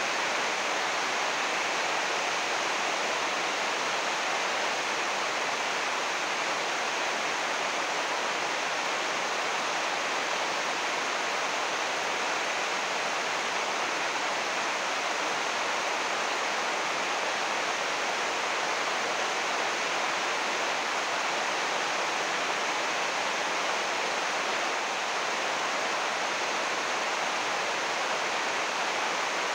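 Heavy rain falling on a 6-metre-wide, 80-micron UV plastic greenhouse roof, heard from inside the greenhouse as a dense, steady hiss.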